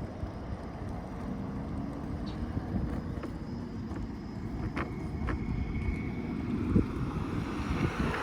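Wind rushing over the microphone and low road rumble while riding an electric unicycle, with a few faint ticks about five seconds in.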